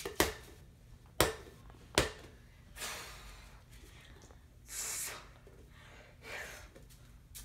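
A ball bouncing on a hard floor: three sharp knocks in the first two seconds, each a little sooner than the last. A few soft breathy huffs follow.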